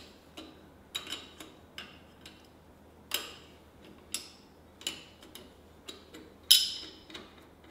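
Hand wrench clicking and clinking on the ATV's parking-brake adjuster nut as it is turned in to take up slack in the brake: about a dozen sharp metallic clicks at uneven intervals, the loudest about six and a half seconds in.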